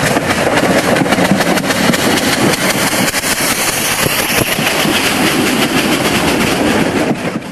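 A train running on the line: a loud, dense hiss with a rapid clatter of clicks, which cuts off suddenly near the end.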